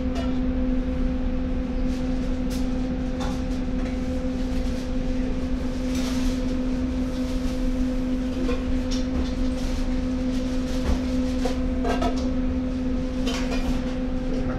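Steady mechanical hum with a constant low drone, dotted with light clicks and clinks, as of kitchen utensils.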